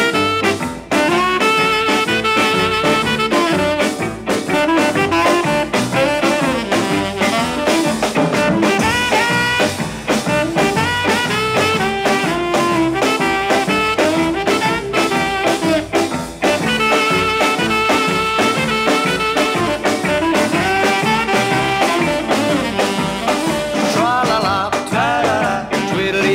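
Swing-style jazz music with brass instruments, playing steadily.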